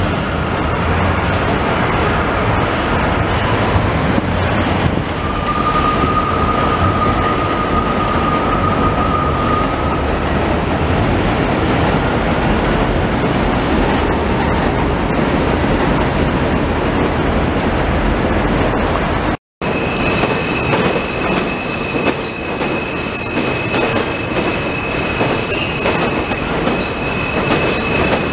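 New York City Subway train running on an elevated steel viaduct: a loud, steady rumble of wheels on rails. A brief dropout comes about two-thirds of the way through, and after it a steady high-pitched tone from the passing train rides over the rumble.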